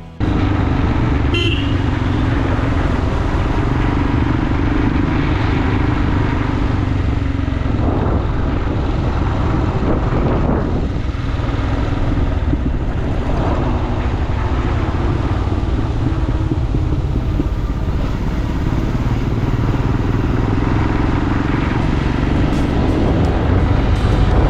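Motorcycle running steadily on the road, its engine note mixed with wind and road noise, loud and continuous.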